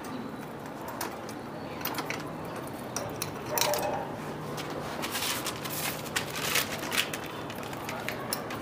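Scattered light clicks, rattles and rustling of a scooter's rear brake cable and its metal fittings being handled and pushed through the body's inner linings, busiest in the middle.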